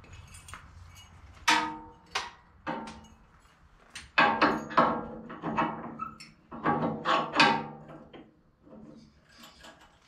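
Ringing metallic clangs of steel on steel as the welded steel brush guard is knocked against its latches to seat it: about a dozen sharp strikes in three groups, each ringing briefly.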